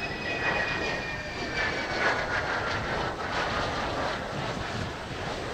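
Mitsubishi F-2 fighter's single F110 turbofan passing low on a low approach with gear down. Its high whine glides down in pitch over the first few seconds as it goes by, over a steady jet rumble.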